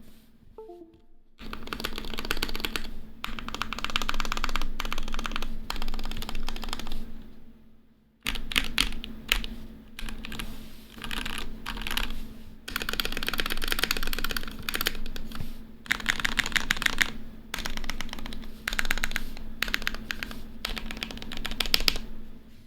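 Typing on a 60% acrylic-cased mechanical keyboard with lubed Gateron Ink Yellow linear switches and GMK keycaps: a dense, fast run of key clacks with short pauses and one longer pause about eight seconds in.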